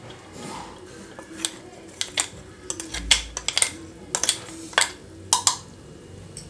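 Metal spoon clinking and scraping against steel kitchenware: a dozen or so sharp, irregular clinks, with a dull knock about three seconds in.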